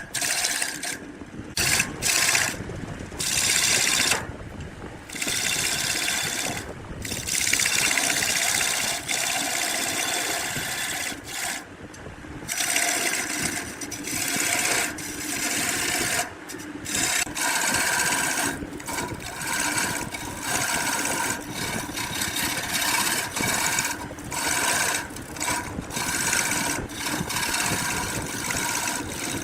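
A tool working wood in repeated stretches of about one to three seconds with short breaks between, a dense rasping, grinding noise with a few steady tones running through it.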